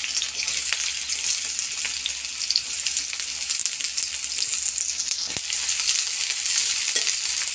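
Sliced onions sizzling steadily in hot mustard oil in a metal kadhai, with a few clicks of the spoon as they are stirred.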